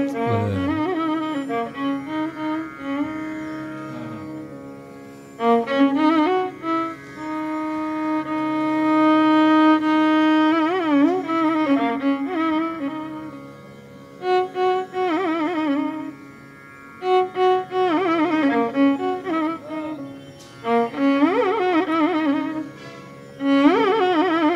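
Background instrumental music: a bowed string melody with many sliding, wavering ornaments over a steady drone.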